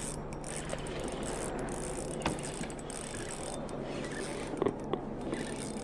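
Spinning reel being cranked to retrieve a lure, its gears whirring with a ratcheting texture and a few sharp clicks.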